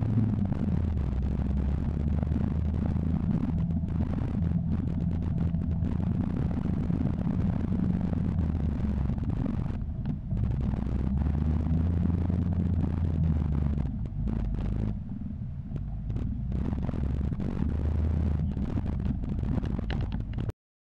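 Engine of an open-top 4x4 running while it drives over a bumpy dirt track, the engine note rising and falling with the throttle, with wind and road noise over it. The sound cuts off suddenly near the end.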